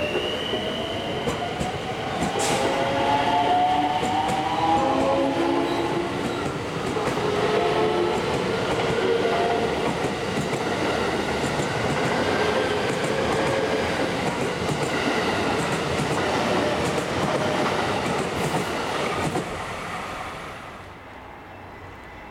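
JR West electric commuter train pulling out of a station: the VVVF inverter drive whines in tones that rise in pitch in steps as it picks up speed, over a steady rumble, with wheels clicking over rail joints. The sound fades about twenty seconds in as the last cars pass.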